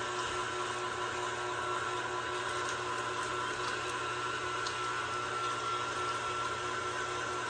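KitchenAid stand mixer's motor running steadily with a constant whine, driving the meat grinder attachment as it grinds beef.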